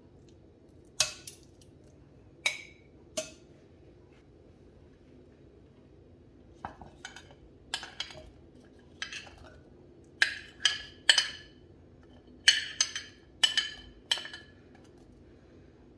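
Metal utensils clinking against a ceramic plate: a few sharp clicks of metal tongs, then from about the middle a quick run of clinks and scrapes as a metal spoon pushes garlic cloves off the plate into a wooden bowl.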